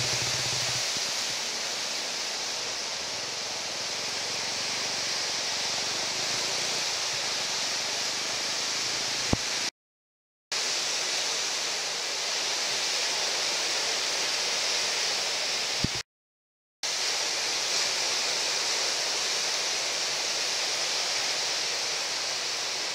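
Steady high hiss of breaking ocean surf. It cuts out to silence twice for under a second, each time just after a small click.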